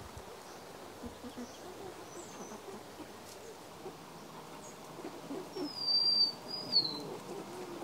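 Backyard hens clucking softly as they feed. Near the end, a wild bird gives a high, wavering whistled call lasting about a second and a half, the loudest sound.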